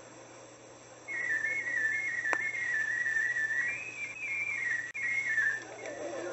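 Whistling: a single clear tone wandering up and down in small steps like a tune. It starts about a second in and lasts about four and a half seconds, with a short click partway through.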